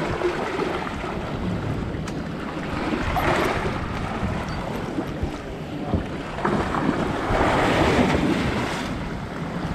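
Sea surf washing and wind buffeting the microphone, swelling twice: about three seconds in and again near the end.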